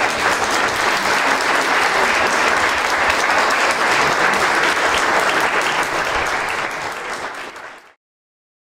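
Audience applauding with dense, steady clapping that tails off and cuts out abruptly near the end.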